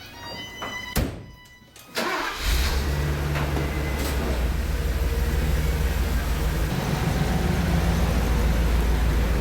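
A Mercedes convertible's engine starting about two seconds in, then running at a steady idle.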